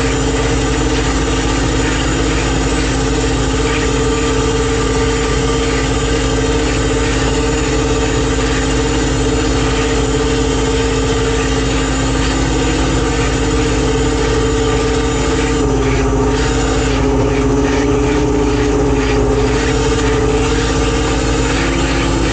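Machinery on a salmon purse seiner running steadily: a loud, even drone with two steady tones, which waver in pitch and pick up some scratchy noise about two-thirds of the way through.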